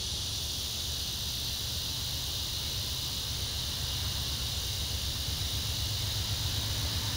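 Steady high-pitched buzz of insects, with a low rumble underneath that grows slowly louder.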